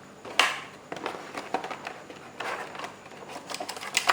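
Small plastic quadcopter parts and their packaging being handled: a sharp click about half a second in, then irregular rustling, crackling and small clicks.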